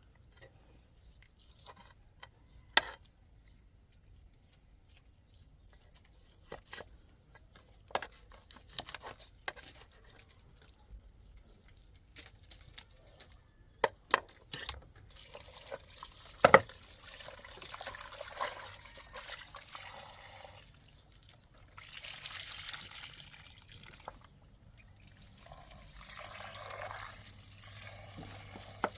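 Scattered sharp knocks and clicks, the loudest about halfway through. In the second half, water runs or pours in three separate spells.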